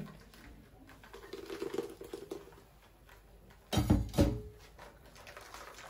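Faint scraping and small clicks of a metal scoop working blended corn pulp in a fine mesh metal sieve. Two dull knocks about four seconds in are the loudest sounds.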